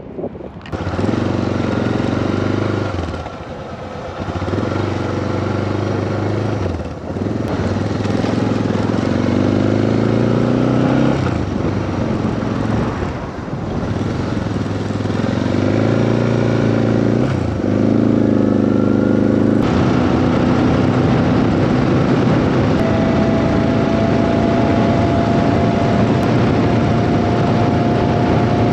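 Motorcycle engine pulling away and accelerating through the gears: its pitch climbs and drops back at each of several shifts. From about two-thirds of the way in it settles into a steady cruise with a thin steady whine over the engine note.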